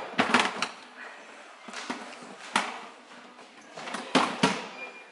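Hollow plastic knocks and clatters as a hooded plastic cat litter box is lifted and its lid and tray are handled. There is a cluster of knocks near the start, single knocks around two seconds in, and another cluster about four seconds in.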